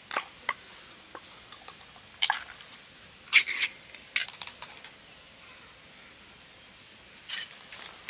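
Small metal pet-food can being handled over plastic bowls, its lid worked open and the food tipped out: a scattered run of sharp clicks and clinks, loudest a little past three seconds in.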